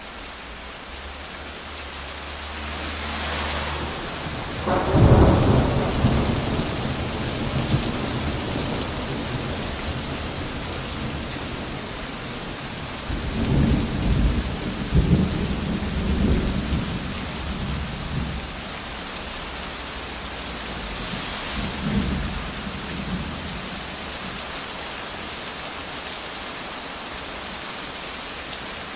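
Steady rain falling, with thunder: a rumble builds into a loud clap about five seconds in that rolls on for a few seconds, a second long rumble comes about halfway through, and a fainter one follows a little later.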